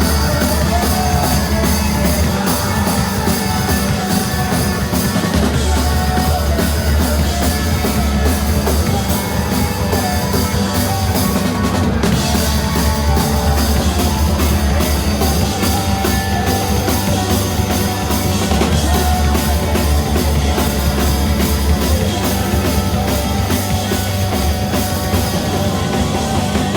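Live rock band playing a song at full volume, with the drum kit and bass drum prominent.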